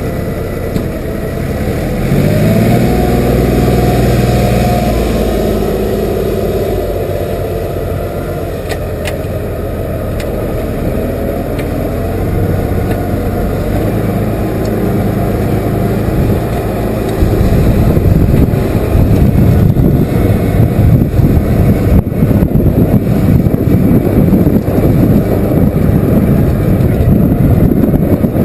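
Case IH 5130 tractor's six-cylinder diesel engine running, its pitch rising about two seconds in. From about two-thirds of the way through it gets louder and rougher, with an uneven fluttering rumble.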